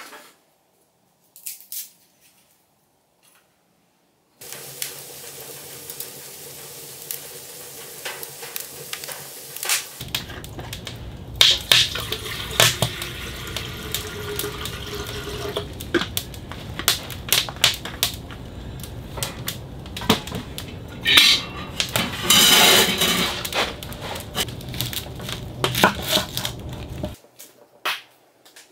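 Water poured into a stainless steel pot, with clinks of metal pots and cups, over a steady rushing noise full of sharp clicks that starts a few seconds in and cuts off suddenly near the end.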